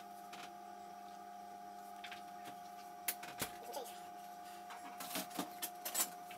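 A steady electrical hum holding one pitch, with scattered small clicks and taps, several of them close together near the end.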